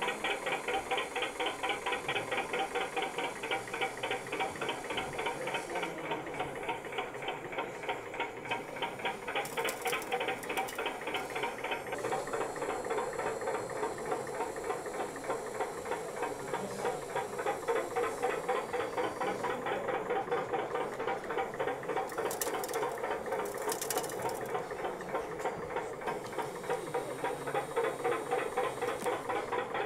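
Small geared electric motor of a working model crane running with a fast, even clicking as it winches its grab bucket.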